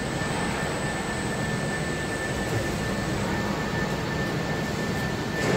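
Automatic case clamp running as its belt conveyor feeds a cabinet carcass in: a steady machine whir with a thin high whine, turning a little louder and harsher near the end.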